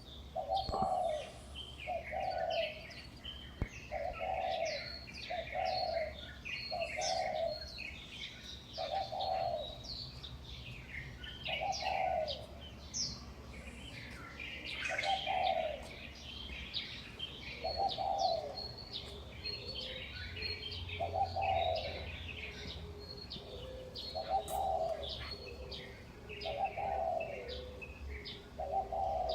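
Many small birds chirping and twittering together, with a low cooing call repeated over and over, at first about once a second and then more slowly.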